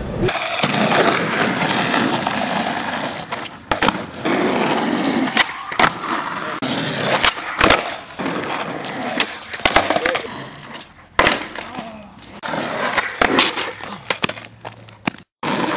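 Skateboard wheels rolling on asphalt, broken by many sharp clacks of the board's tail and deck hitting the pavement as tricks are popped, landed and missed.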